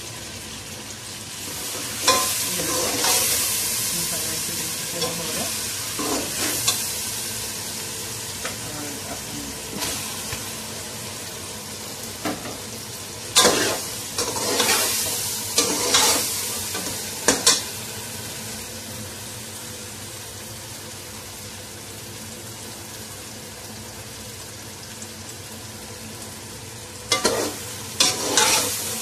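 Onion-tomato masala frying in oil in an aluminium pot, a steady sizzle, while pieces of taro root and potato are stirred in. A steel slotted spoon scrapes and knocks against the pot in short clusters. The sizzle swells about two seconds in and then slowly fades.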